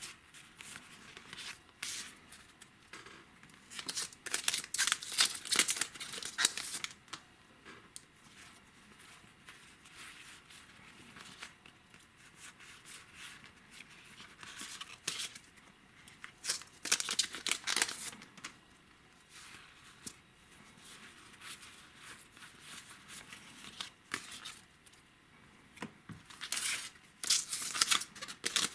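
Foil wrappers of Weiß Schwarz trading-card booster packs being torn open and crinkled in loud crackly bursts, three times, with quieter rustling of cards being handled in between.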